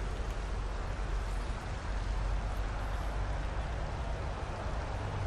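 Steady wind noise rumbling on the microphone of a head-mounted GoPro.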